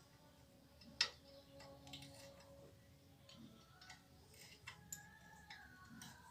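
A few faint, scattered clicks and taps, the sharpest about a second in, with no engine running.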